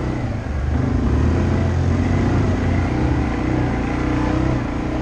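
ATV engine running steadily under throttle while the quad rides along a dirt trail; about half a second in it gets louder and its pitch rises a little, then wavers gently with the throttle.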